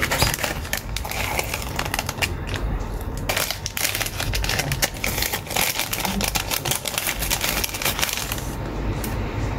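Irregular small clicks, taps and crinkles of tools and phone parts handled on a repair bench, over a low steady hum.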